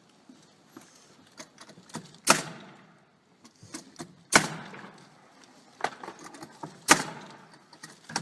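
Sharp clacks and clicks of something being handled: three loud ones about two seconds apart, with lighter clicks between.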